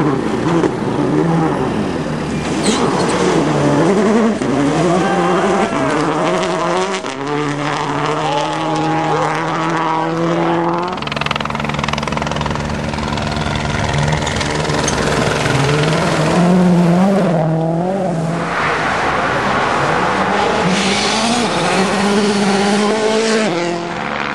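Rally cars at full speed on a gravel special stage, their engines revving hard and dropping back again and again as they shift gears through the bends. The car sounds come in several passes.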